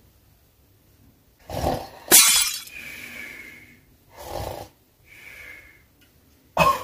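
A drinking glass shattering about two seconds in, sudden and then fading out. A brief vocal sound comes just before it, and a few quieter short sounds follow.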